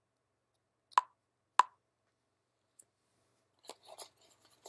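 Two sharp clicks about half a second apart from a small plastic charger and cardboard box insert being handled, then faint taps and rustles as the packaging tray is moved near the end.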